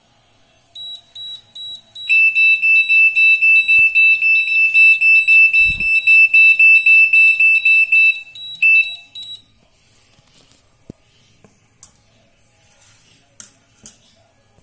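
Temperature alarm of an Inkbird IBT-2X BBQ thermometer setup beeping rapidly, about three beeps a second, the signal that the probe has reached its set temperature of 75°C. A few short higher beeps come first, then a louder lower beep takes over, and the beeping stops about nine seconds in when the alarm is acknowledged. There is a soft thump in the middle.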